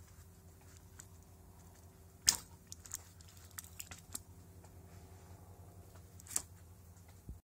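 A few sharp clicks and light knocks from hands and parts being handled, the loudest about two seconds in, over a steady low hum. The sound cuts off abruptly just before the end.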